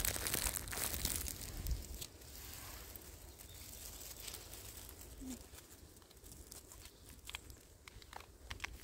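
Crinkling, rustling handling noise for about two seconds as the camera is adjusted. Then it goes quiet apart from light rustles and a few small clicks near the end, as a gloved hand reaches into the oyster mushrooms on the log.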